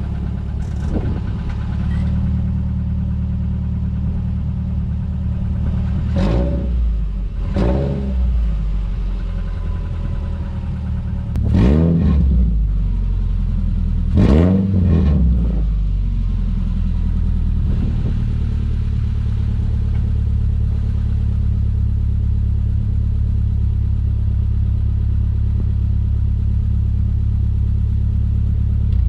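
Subaru Outback's boxer engine running with a loud exhaust note from an exhaust pipe broken in two under the car. The engine idles steadily and is revved four times, each rev rising and falling back within about a second.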